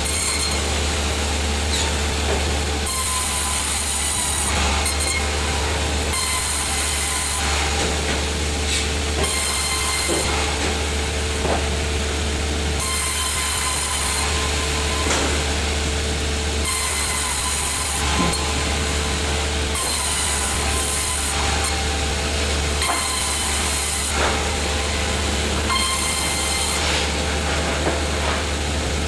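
Sawmill machinery running with a constant low hum, while the saw cuts timber, its high hiss coming and going every second or two.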